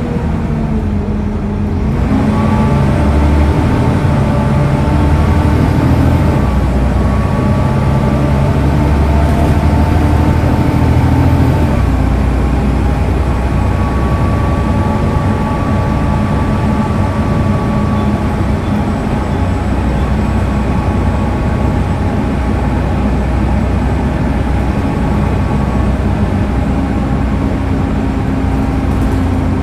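Volvo D7C 7.3-litre diesel engine and ZF Ecomat five-speed automatic gearbox of a Volvo B7TL double-decker bus running steadily, with a low rumble and a faint whine. The note shifts about two seconds in and again about twelve seconds in.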